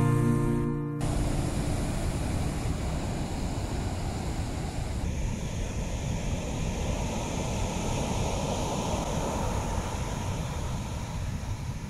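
Large ocean waves breaking in a steady rush of surf, with wind rumbling on the microphone. Guitar music cuts off about a second in.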